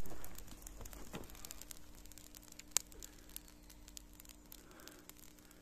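A smouldering heap of dry weeds and grass burning, with scattered faint crackles and pops and one sharper pop about three seconds in. It opens with a brief rustling noise, and a faint steady low hum runs underneath from about a second in.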